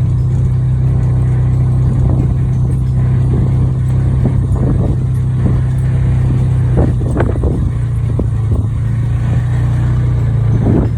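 Side-by-side utility vehicle's engine running steadily at a low drone while driving across the farm, with a few scattered short rattles.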